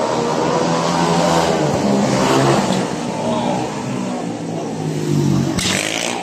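Several 500cc single-cylinder speedway motorcycle engines racing round the track, their notes rising and falling as the bikes accelerate out of the bend and sweep past. There is a short burst of noise near the end.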